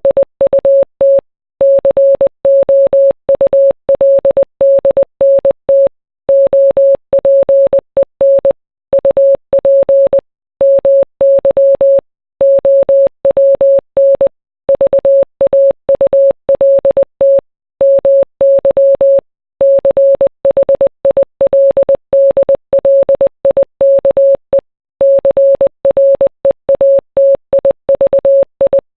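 Morse code sent as a single steady mid-pitched beep, keyed rapidly on and off in short and long elements, with a brief pause every one to two seconds between words. It spells out a song's lyrics.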